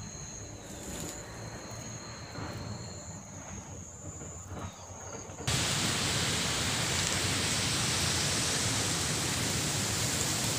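Insects calling in two steady high-pitched tones over a faint rustle; about halfway through this cuts abruptly to the loud, steady rushing of a brown flooded stream.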